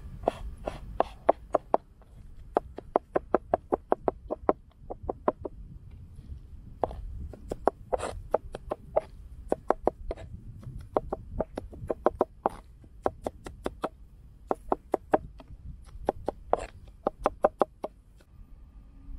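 Kitchen knife rapidly chopping garlic and red chili peppers on a wooden cutting board: runs of quick sharp knocks, about five a second, broken by short pauses, stopping shortly before the end.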